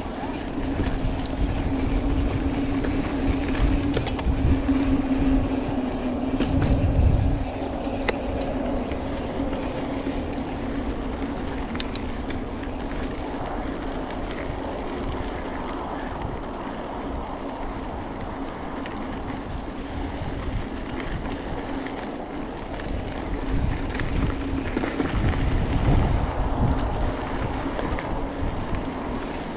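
Mountain bike rolling along a dirt singletrack: tyre noise and rattle over a steady hum, with wind buffeting the microphone in two spells, a few seconds in and again near the end.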